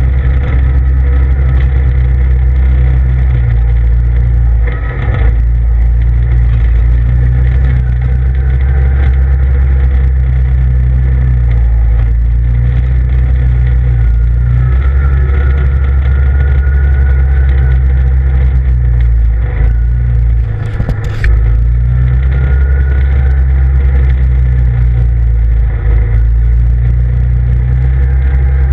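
CF Moto ZFORCE 800EX side-by-side's V-twin engine running as it drives a dirt trail, a loud, steady low drone heard from inside the cab. It dips briefly twice and rises into a whine about halfway through while the machine churns through mud.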